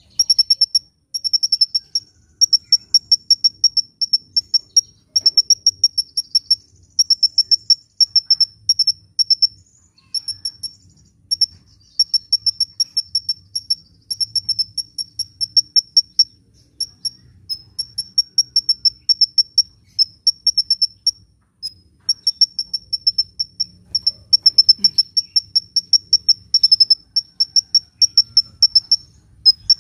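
Sunbird (kolibri) singing: rapid runs of sharp, high-pitched chirps, about eight to ten a second, in bursts of one to two seconds with short breaks between them.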